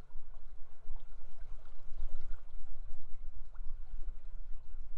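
River water running, with wind rumbling on the microphone.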